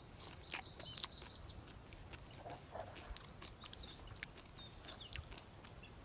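Faint outdoor ambience: scattered light crackles and rustles, with a few short high bird chirps about a second in and again past the middle.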